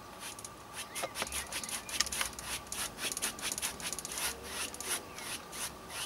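Oil-paint brush scrubbing across a stretched canvas in short, quick back-and-forth strokes, several a second, a dry scratchy rubbing as light paint is worked in and blended.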